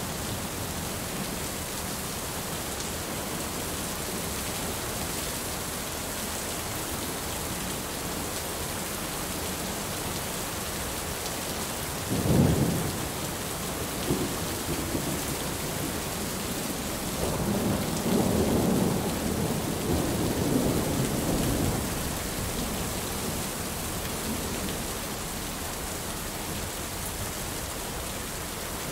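Heavy rain falling steadily, with thunder: a sudden thunderclap a little under halfway through, then several seconds of rumbling thunder.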